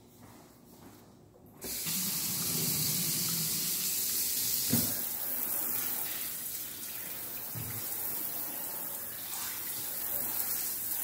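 Kitchen sink tap turned on about a second and a half in, then water running steadily into the sink. There is a soft knock near the middle and a fainter one a few seconds later.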